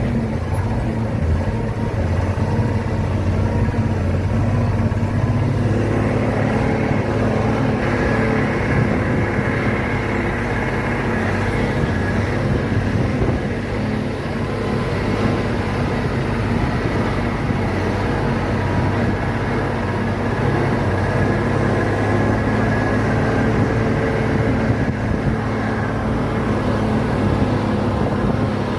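Truck engine running steadily as the truck drives along, with road and cab noise under it.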